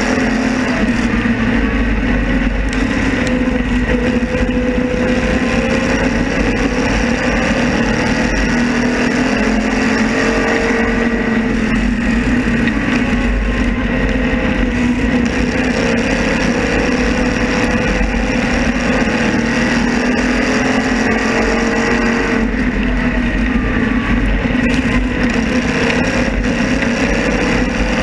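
Open-wheel race car engine at racing speed, heard onboard: a loud steady run whose pitch slowly rises and dips as the car works around the oval, mixed with wind noise.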